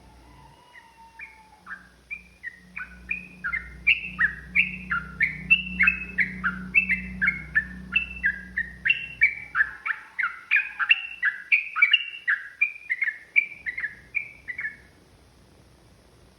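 Yellow-vented bulbul (trucukan) singing a long rapid run of sharp, falling chirping notes, about three a second, that grows louder over the first few seconds and stops about a second before the end. A low hum sits under the first part.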